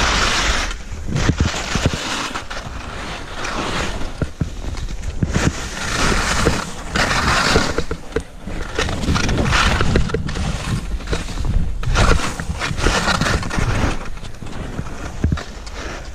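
Skis carving and scraping through soft snow in repeated swooshing surges as the skier turns, over a steady low rumble of wind on the helmet-mounted GoPro microphone.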